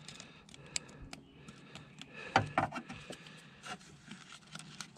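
Scattered small clicks and scraping of a small screwdriver prying at the plastic locking tab of an ignition coil's electrical connector to unclip it, with a short cluster of clicks about halfway through.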